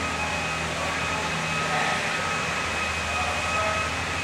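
Steady hum and hiss of a large indoor hall, its ventilation running, with a faint steady whine above it.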